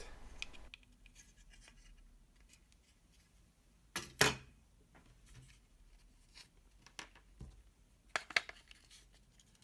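Opened RC car transmitter being handled: scattered small clicks and scrapes of its housing and parts, the loudest a sharp pair of clicks about four seconds in.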